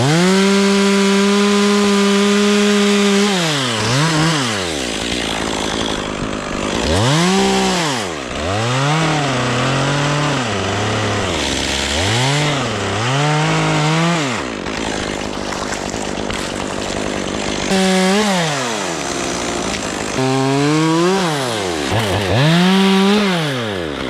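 Two-stroke chainsaw running at full throttle, then its engine speed falling and rising again and again as the throttle is let off and squeezed. About two thirds of the way through the pitch sinks lower for a few seconds before it revs back up.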